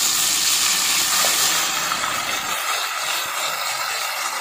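Masala-marinated chicken leg pieces deep-frying in hot oil, a steady sizzling hiss of bubbling oil.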